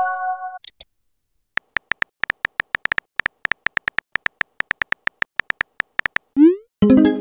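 Texting-app sound effects: a chime fading out at the start, then a long run of quick, even keyboard-tap clicks, about seven a second, as a message is typed. Near the end a short rising whoosh and a chime mark the message being sent.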